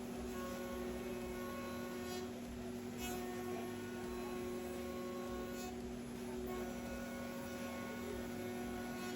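CNC router spindle running with a steady hum, while higher tones come and go above it every few seconds.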